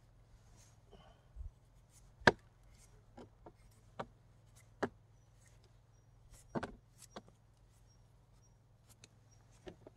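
A toothed saw blade scraping soil and skin off a freshly dug yacon root: a series of short, irregular scrapes and clicks. The sharpest comes about two seconds in.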